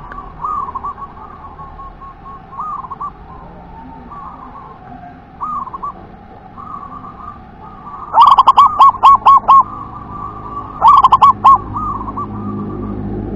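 Zebra dove (perkutut) cooing. Soft coos run through the first part, then about eight seconds in a loud, close run of rapid staccato coos, with a shorter loud run about three seconds later.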